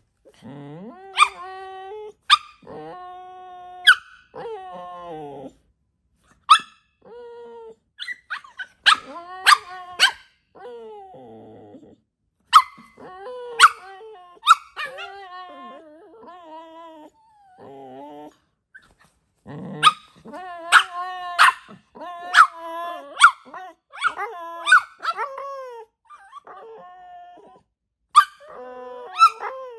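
A dog barking and whining in repeated bouts, with sharp short yaps between drawn-out whines.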